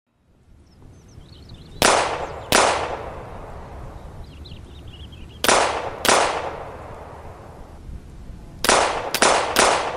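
Pistol shots, seven in all: two about two seconds in, two more about three seconds later, then three in quick succession near the end. Each has a sharp crack and a trailing echo.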